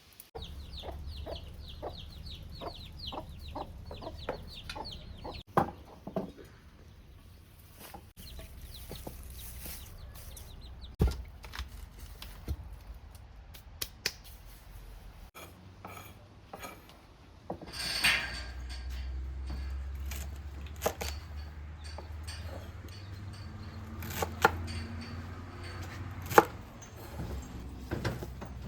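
A rapid series of short high chirps from a bird or small animal, about four a second, during the first five seconds. Scattered sharp clicks and knocks follow over a low steady hum.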